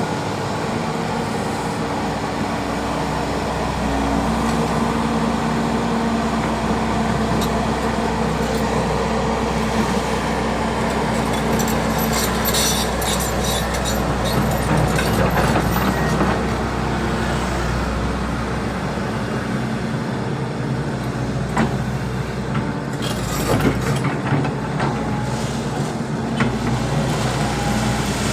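Volvo EC200D excavator's diesel engine running steadily at working revs, with scattered knocks and clatters of stone being moved, a cluster about halfway through and more toward the end.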